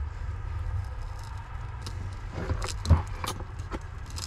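A plastic LED light strip being pressed onto Velcro along the edge of a van's headliner: a run of small clicks and taps in the second half, with one louder knock about three seconds in, over a low steady rumble.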